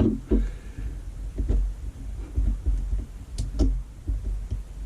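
Scattered light knocks and clicks of small parts being handled and tried for fit on a work surface, irregular, with a couple of sharper clicks about three and a half seconds in.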